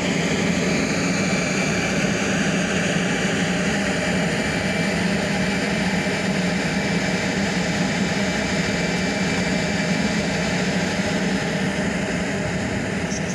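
DS3 electric multiple unit standing at a platform, its onboard equipment running with a steady loud hum and a thin high whine. The whine fades out about ten seconds in.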